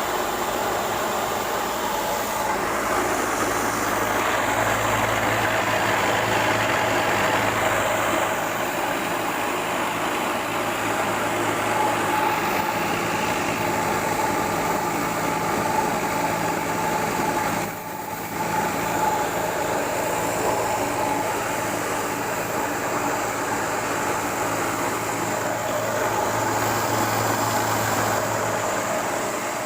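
Mahkota KD-450 rice polisher running steadily, a continuous mechanical hum with a higher whine over it that dips briefly about eighteen seconds in.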